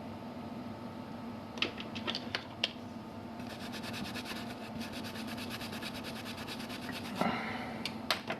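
A small brush scrubbing a circuit board in quick, even strokes to wash away flux around a freshly soldered jumper wire. A few sharp clicks come before it and a scrape comes near the end, over a steady background hum.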